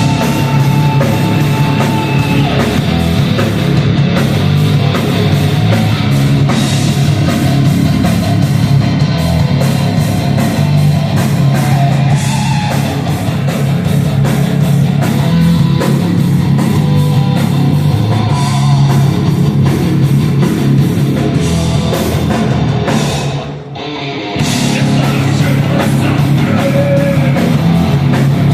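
Heavy rock band playing live: distorted electric guitars and bass over fast drums, breaking off for about a second near the end before the whole band crashes back in.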